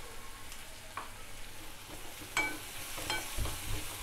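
Chopped onions sizzling in oil in a metal kadai, with a wooden spatula knocking and scraping against the pan a few times, the loudest knock about two and a half seconds in.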